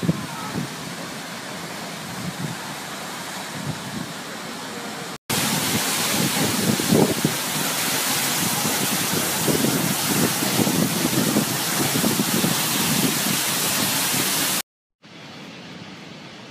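Waterfall rushing, with wind buffeting the microphone, across three clips cut together. The middle clip, from about five seconds in to nearly fifteen, is the loudest.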